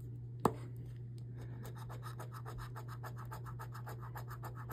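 A scratch-off lottery ticket being scratched with a small hand-held scratcher in quick, even back-and-forth strokes, about eight a second, starting a little over a second in. There is a single sharp click about half a second in, and a steady low hum underneath.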